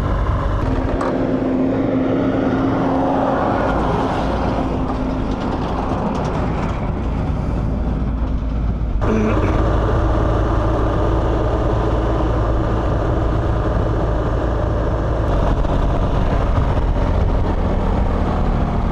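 BMW GS Adventure motorcycle running at a steady speed, its engine hum under a steady rush of wind and road noise. The sound changes abruptly about halfway through.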